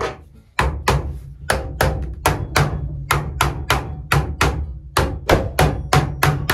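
Hammer tapping PVC pipe fittings down onto the pipes of a frame to seat the joints fully, a steady run of sharp knocks at about three to four a second starting about half a second in.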